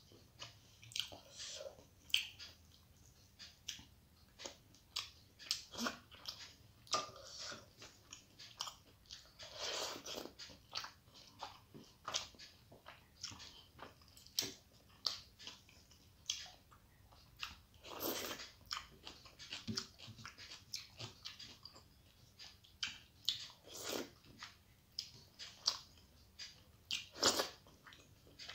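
Close-miked chewing with many short, wet mouth clicks from a person eating rice and fish curry by hand, along with fingers mixing and wiping the rice on a steel plate.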